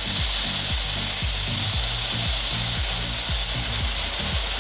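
Butane gas hissing steadily out of a Ronson butane refill can into the fuel tank of a LEXIVON LX-770 butane soldering iron: the empty tank being filled.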